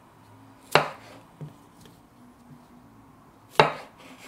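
Kitchen knife chopping through the ends of a cucumber onto a wooden cutting board: two sharp chops about three seconds apart, with a lighter knock shortly after the first.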